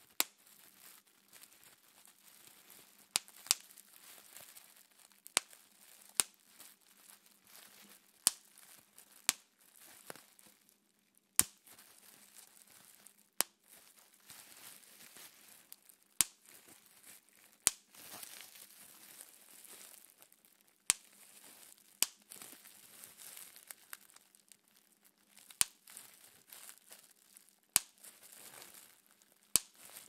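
Plastic bubble wrap being popped between the fingers: sharp single pops at uneven gaps of one to three seconds, with the soft crinkling of the plastic sheet being handled between them.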